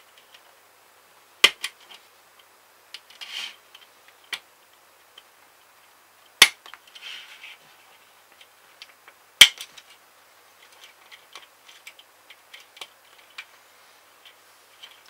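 Plastic model parts being snipped off a kit sprue with sprue cutters: three sharp snaps a few seconds apart, with lighter clicks and ticks of plastic between.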